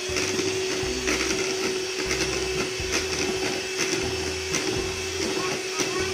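Electric hand mixer on its stand running steadily at speed, beaters whirring in the mixing bowl, with scattered clicks and knocks.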